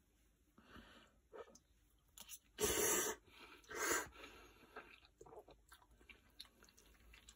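A person eating a mouthful of spaghetti carbonara close to the microphone: quiet chewing and mouth sounds, with two loud, airy bursts of about half a second each near the middle.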